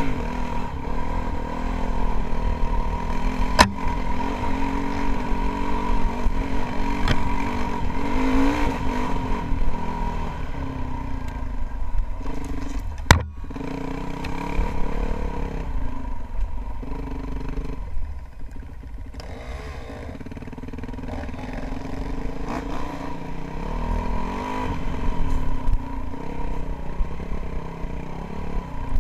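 2007 Yamaha WR450F's single-cylinder four-stroke engine running under a rider, revving up and down with the throttle over a constant low rumble. Two sharp knocks come through, about four and thirteen seconds in, and the engine drops to a lower, quieter note for a couple of seconds past the middle before picking up again.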